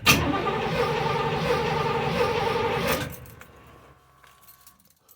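Box Chevy's fuel pump priming: a steady electric whir that starts suddenly, runs for about three seconds and cuts off, followed by a faint fading hum.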